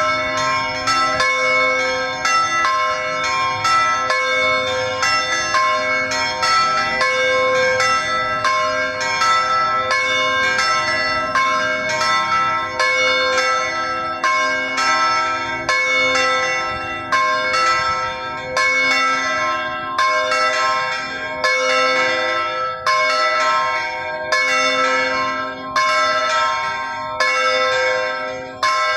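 Church bells ringing a continuous peal: an even, unbroken run of strikes, each note ringing on into the next.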